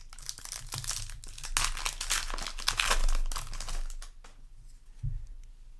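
Foil booster-pack wrapper crinkling and tearing as a trading-card pack is ripped open, densest and loudest in the middle, then tailing off to a few light rustles.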